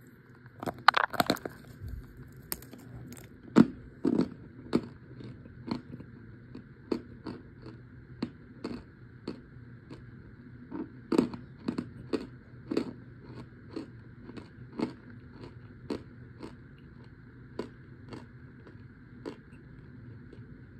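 Chunks of dried, packed cornstarch being bitten and chewed close to the microphone: a cluster of sharp crunches about a second in, then a steady chewing crunch about twice a second.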